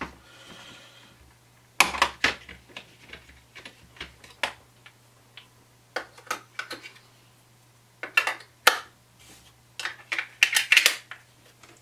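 Scattered clicks and clatters of hands swapping the batteries in a Coil Master 521 Plus Tab ohm reader and fitting its plastic battery cover, the busiest clusters about two seconds in and again in the last few seconds.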